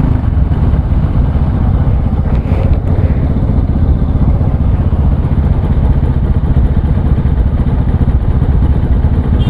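Bajaj Pulsar NS200's single-cylinder engine running steadily, with no 'tak tak' tapping from the left side cover now that the faulty one-way starter clutch has been fixed.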